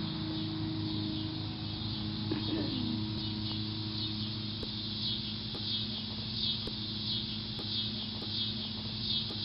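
Backyard ambience: insects chirping in a rhythmic high pulse about once a second, over a steady low hum. A brief falling tone sounds about two and a half seconds in.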